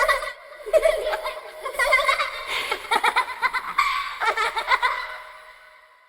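ElevenLabs AI-generated sound effect of a little kid's laughter, made to be chilling: rapid, repeated giggles that fade out near the end.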